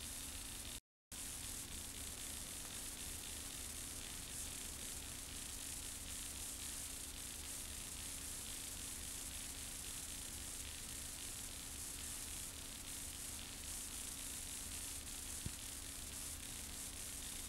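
Steady tape hiss with a faint, even low hum. The sound drops out completely for a moment about a second in.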